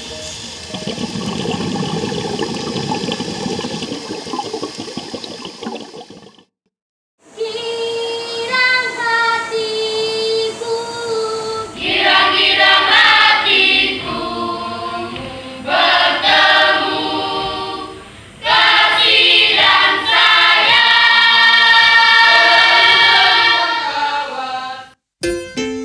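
Background music fades out about six seconds in; after a brief silence a group of voices starts singing together as a choir, thin at first, then fuller and louder from about twelve seconds in.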